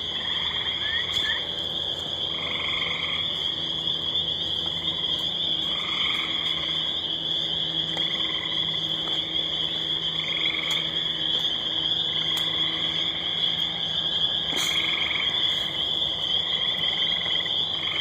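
A dense chorus of spring peepers forming a continuous high shrill. Gray tree frogs give short trills over it, one about every two seconds.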